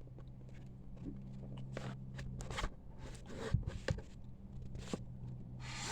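Scattered light clicks and scrapes of the SV150 engine's recoil starter being handled, its pulley turned to wind up the recoil spring.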